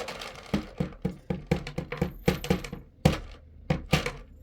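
A quick, irregular run of sharp clicks and knocks, a few each second, from cat treats being handled and given out; the loudest knock comes about three seconds in.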